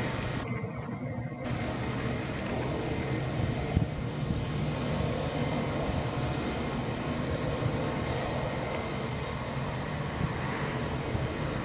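Airbus A320's jet engines running at low taxi thrust, a steady rumble, with the higher part of the sound dropping out briefly about half a second in.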